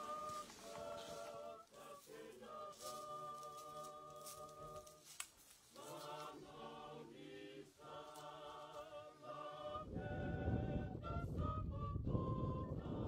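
A choir singing unaccompanied in long held notes. About ten seconds in, a loud low rumbling noise comes in under the singing.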